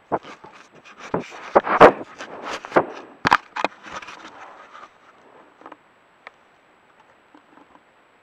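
Close knocks and scrapes of a black bear handling a trail camera, its body right on the microphone, for about five seconds; the camera is knocked over. Then only faint scattered rustles.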